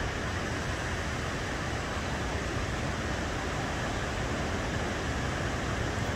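Surf breaking and washing up a sandy beach: a steady, even rush of noise with a low rumble underneath.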